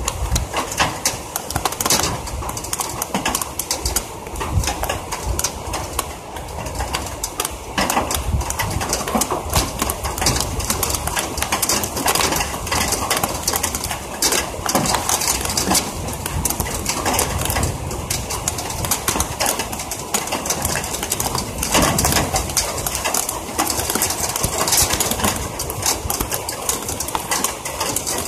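Heavy rain drops clattering on a window ledge and directly on the body of the phone that is recording: a dense, unbroken patter of hits close to the microphone.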